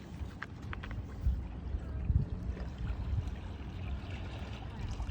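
Lake water washing against a stony shoreline, with a low rumble of wind on the microphone and a few faint pebble clicks in the first second.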